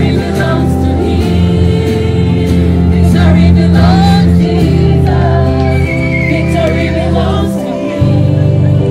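Gospel choir singing over held accompaniment chords that change every second or two.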